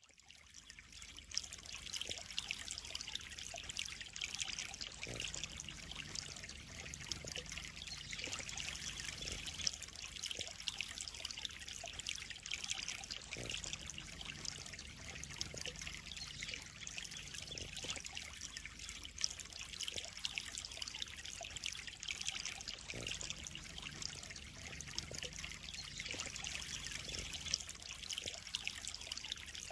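Water trickling and splashing steadily into a pond, fading in over the first second or so, with scattered small splashes.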